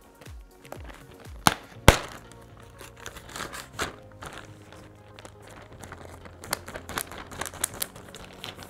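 A clear plastic zip-lock bag handled by hand: it crinkles as it is pulled open and pressed shut. There are two sharp snaps about a second and a half and two seconds in, and a run of smaller clicks near the end. Light background music plays throughout.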